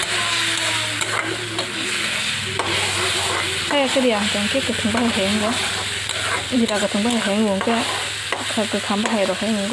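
Food frying in oil in a black iron kadai, sizzling steadily while a metal spatula stirs and scrapes it around the pan. From about four seconds in, the scraping comes in bouts with a wavering, squeaky pitch.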